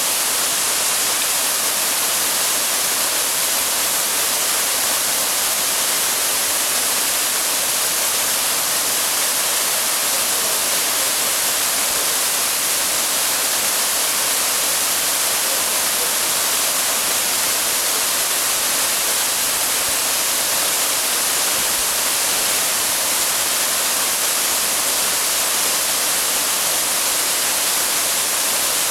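Waterfall: a steady, unbroken rush of falling water, heavy on the high hiss.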